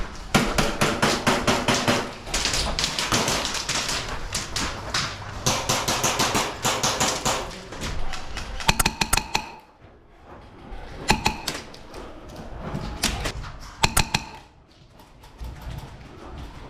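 Airsoft guns firing: long runs of rapid snapping shots in the first half, then shorter bursts and a few single shots in the second half.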